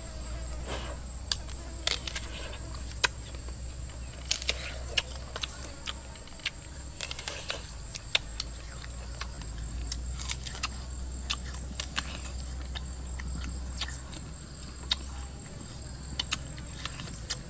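A steady high-pitched insect drone, cicadas or crickets, with many irregular sharp clicks and knocks over it.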